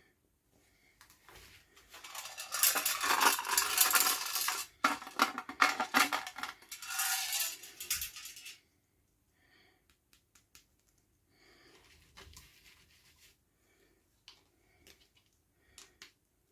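Hands handling plastic toy packaging and small plastic pieces: a dense run of crinkling and clicking for several seconds, then a few scattered light clicks.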